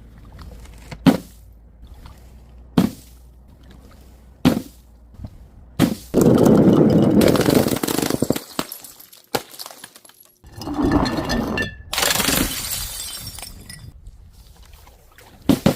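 Glass bottles breaking: a few sharp knocks, then a long crash of shattering glass about six seconds in, and after a brief silence more crashing and a high shatter with tinkling shards. A quick run of clicks comes near the end.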